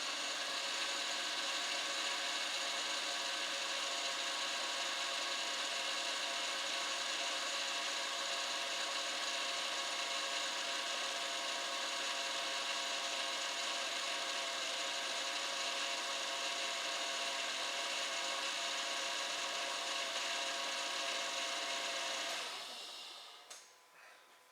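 Honda Odyssey's 3.5-litre V6 running steadily, with an intermittent misfire setting in. The steady noise fades out about 22 seconds in.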